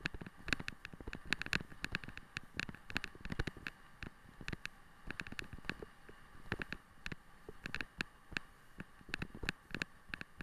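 Irregular clicking and rattling, several a second, from a sled-dog rig rolling over a rough forest track as a team of huskies pulls it, over a faint steady rushing.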